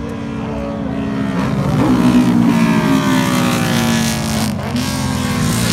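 Racing motorcycle engines revving hard under acceleration, the pitch climbing steadily, dipping sharply about four and a half seconds in, then climbing again.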